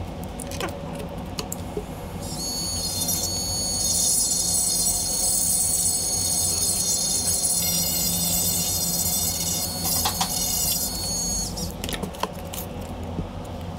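Small cordless rotary tool running with a high-pitched whine, its bit grinding a piece of blue carving wax. The whine starts about two seconds in, shifts in pitch a little partway through and stops near the end.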